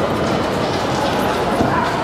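A dog barking and yipping over a steady background hubbub of voices.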